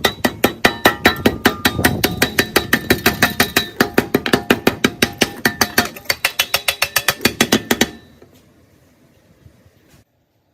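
Metal being hammered in quick, even blows, about five or six a second, each blow ringing; the hammering stops about eight seconds in.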